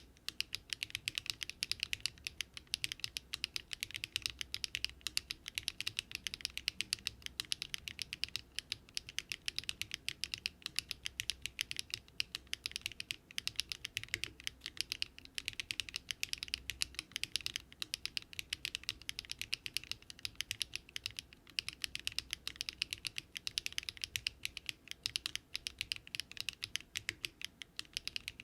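Continuous fast typing on a Daring Run Polygon-7 custom mechanical keyboard built with Luminkey Astral switches, an FR4 plate and no foam. The keystrokes come in a steady, unbroken run.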